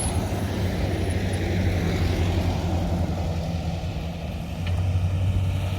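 A motor vehicle running with a steady low hum over a rushing noise, easing slightly about four seconds in and swelling again.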